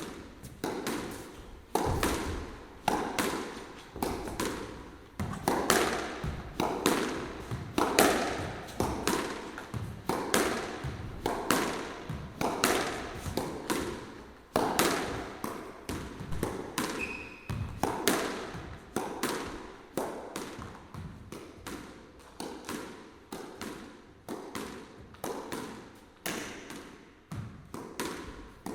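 Squash rally: a steady series of sharp racket strikes and ball smacks off the court walls, one or two a second at an irregular pace, each echoing briefly in the enclosed court. About 17 seconds in there is a short high squeak, like a shoe on the court floor.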